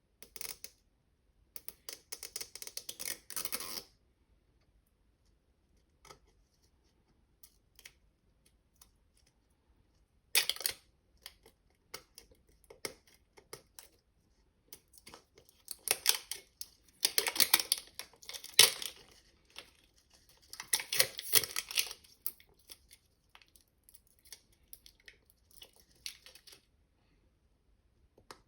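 Toy packaging being unwrapped by hand: crackly crinkling, clicking and tearing in several bursts with quiet pauses between them, busiest in the second half.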